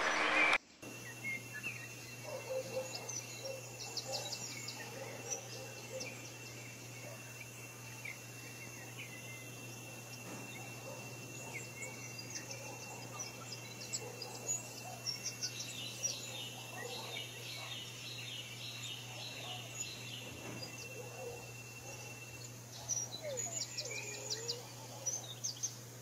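Forest bird ambience: many birds chirping and trilling in short, scattered calls, busiest a few seconds in, around the middle and near the end, over a steady high-pitched tone that stops near the end and a low steady hum. A louder passage cuts off abruptly under a second in.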